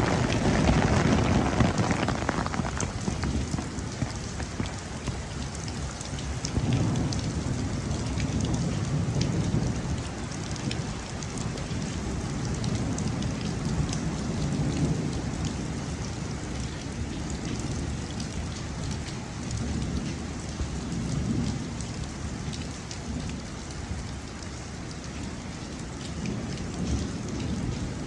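Heavy thunderstorm rain pouring steadily, with many sharp drop impacts. Low rumbles of thunder swell and fade several times; the loudest is at the start.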